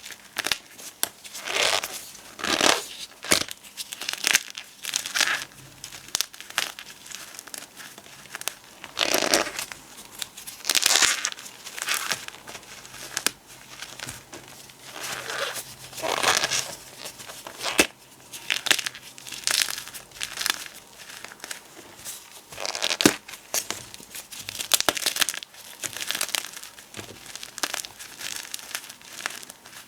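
Gym chalk and potato flour being crushed, a long series of irregular short crumbling crunches with brief gaps between them.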